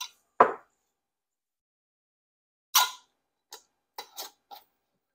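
A lid being put on a glass jar and screwed down: a knock about half a second in, a sharper clack near three seconds in as the lid meets the jar, then a few small ticks as it is turned tight.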